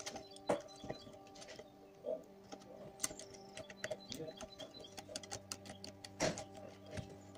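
Small clicks and taps of a screwdriver and tweezers on the plastic and metal parts of a camcorder's tape mechanism being taken apart. There is a cluster of clicks around three to four seconds in and a sharper knock a little after six seconds, over a faint steady hum.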